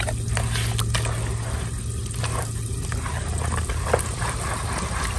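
A hand squishing and mixing wet rice-flour batter in a plastic bowl: irregular wet squelches and smacks, over a steady low hum.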